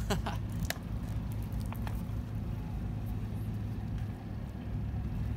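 Steady low outdoor rumble, with a few faint clicks in the first two seconds.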